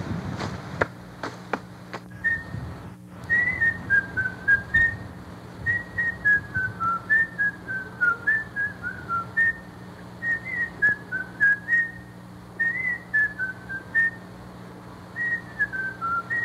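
A person whistling a tune: a single clear melody of short notes stepping up and down, over a low steady hum. A few sharp clicks come in the first two seconds.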